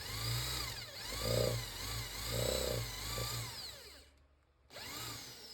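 Power drill boring dowel holes into a cricket bat, the motor's pitch rising and falling as it runs, with two heavier bursts as the bit cuts. It stops about four seconds in, then runs briefly once more.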